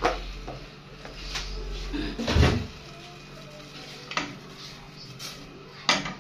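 Metal clanks and knocks of a stainless steel pot being handled on a gas stove's grate, with five or so separate knocks and the loudest a heavier thump about two and a half seconds in.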